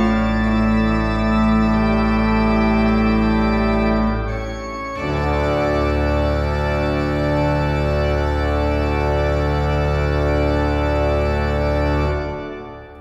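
Westenfelder pipe organ playing sustained full chords over a low pedal bass, with a brief break about four and a half seconds in. A long final chord follows and cuts off near the end, leaving the church's reverberation to die away.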